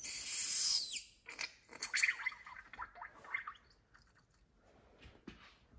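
Damper rod and piston of a motorcycle rear shock being worked in its ATF-filled body: a loud hiss with a falling squeal in the first second, then irregular squeaky squelching of oil and trapped air, fading to a few light clicks.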